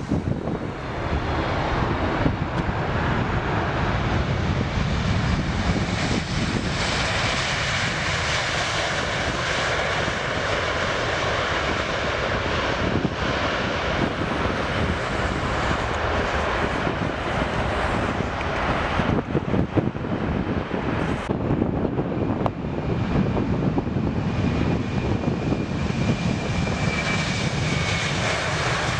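Jet airliner engines running steadily: first a Boeing 747 freighter, then a Boeing 737-800 after a cut about two-thirds of the way through. Over the 737 there is a high engine whine that slowly falls in pitch near the end.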